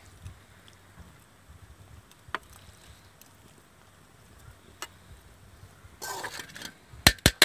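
A metal spoon working masala onto the fish: a few faint clicks, then near the end a short scrape of spoon against a steel bowl and two sharp metallic knocks.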